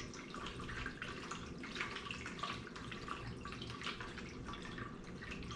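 Warm water sloshing and lapping in a clear plastic dough tub as it is swirled by hand to dissolve salt, a soft, irregular patter of small splashes.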